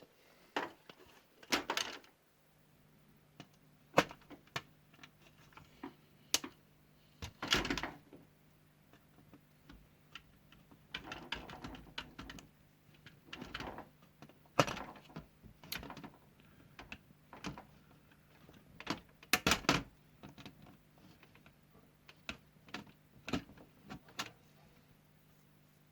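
Irregular clicks, taps and knocks of small tools and parts being handled on a workbench while LEDs are desoldered from a light's LED strip, some in quick little clusters. A faint steady hum runs underneath from about two seconds in.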